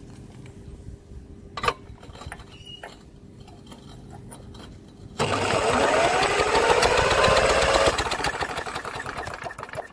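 Drill cranking the lawnmower engine over with the spark plug out for a spark test, its motor whining up in pitch for about three seconds with a rapid ticking, then running down.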